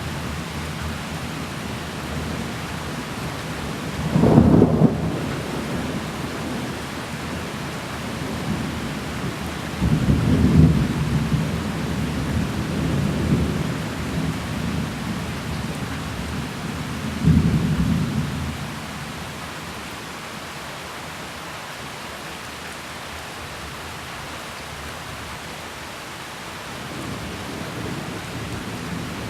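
Thunderstorm: steady rain with rolls of thunder, three times, about four, ten and seventeen seconds in; after the last the rain goes on alone, a little quieter.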